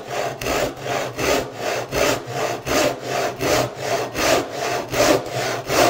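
Brass-backed joinery hand saw crosscutting a small board, a steady rasp about three strokes a second as the teeth ride in a scored knife line.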